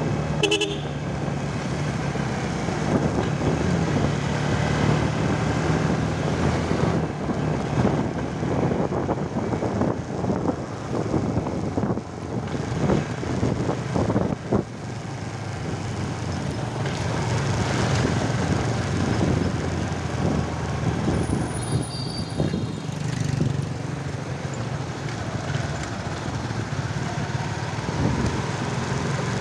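Motorcycle engine running steadily under way, with wind and road noise and surrounding street traffic, including motorcycle tricycles. A short horn toot sounds just after the start.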